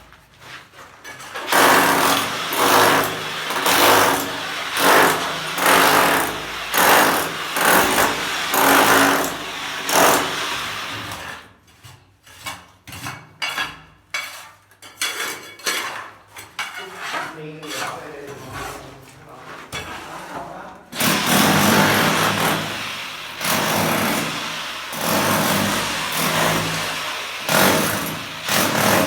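Electric demolition hammer chipping masonry in repeated bursts about a second apart, dropping to short broken bursts midway and then running hard again near the end.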